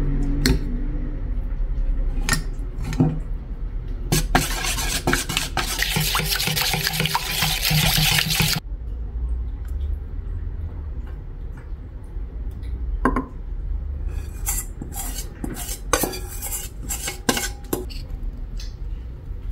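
Kitchen utensils clinking and stirring in a container, with scattered sharp clicks. About four seconds in, a steady hiss starts and lasts about four seconds before stopping abruptly; a busier run of clinks follows near the end.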